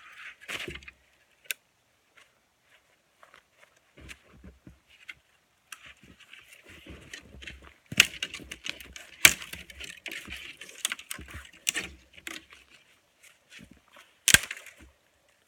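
Snow crunching and scraping under snowshoes as snow is dug out, in irregular bursts with a few sharp knocks about eight, nine and fourteen seconds in.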